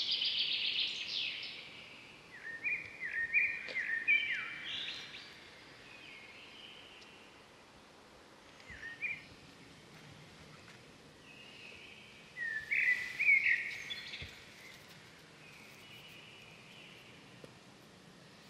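Birds singing in short runs of quick chirping notes: a loud run right at the start, more stepped notes around three to five seconds in, a short phrase near nine seconds and another run about thirteen seconds in, over a steady outdoor background hiss.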